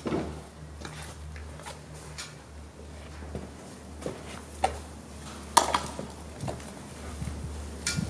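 Footsteps in work boots on concrete with a few scattered sharp clicks, over a steady low hum.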